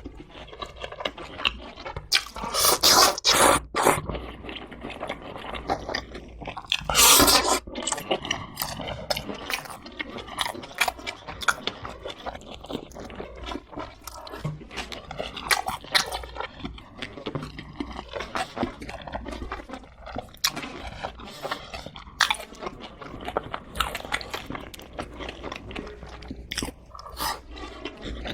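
Close-miked chewing and biting into crispy fried chicken: a steady run of wet chews and crisp crunches, loudest about two to four seconds in and again around seven seconds.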